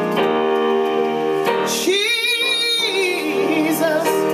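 Gospel worship song: sustained keyboard chords, with a woman's voice singing a held, wavering note with vibrato about halfway through.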